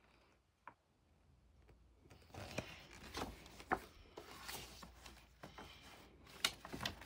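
Pages of a picture book being handled and turned: quiet at first apart from one small click, then from about two seconds in, paper rustling with several short sharp taps.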